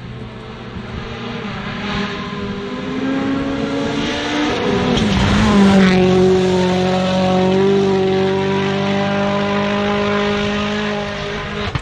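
A rally car's engine approaches at speed, its note climbing as it comes closer. About five seconds in it passes close by, at its loudest, and the pitch drops sharply. It then holds a steady, lower note as it drives off up the road.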